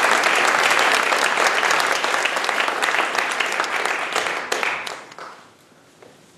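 Audience applauding, many hands clapping, then dying away about five seconds in.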